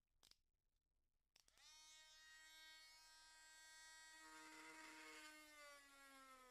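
Dremel rotary tool with a Roto-zip bit starting up about a second and a half in and running with a faint, steady whine that sags slowly in pitch as it drills into the plastic earmuff. A short rougher grinding patch comes near the middle as the bit cuts.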